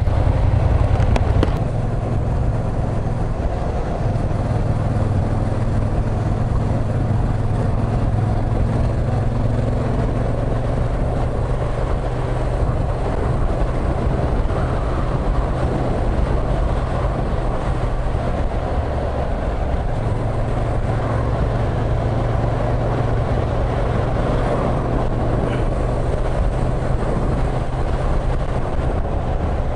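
Yamaha MT-07's parallel-twin engine running under way, its note stepping up and down a few times with the throttle, under steady wind and road noise on the microphone.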